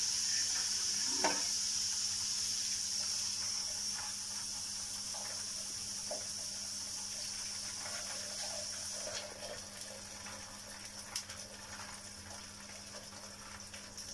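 Aloo paratha frying in oil on a hot tawa: a steady sizzling hiss that slowly fades, dropping off about nine seconds in, with a few faint clicks.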